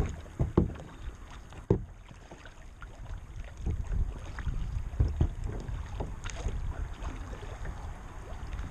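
Plastic kayak moving through choppy water: water slapping and splashing against the hull at irregular moments, the sharpest just after the start, near two seconds in and around five seconds in, over a steady low rumble of wind on the microphone.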